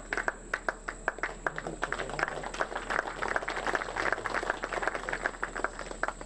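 Audience applauding: many hands clapping, dense and uneven.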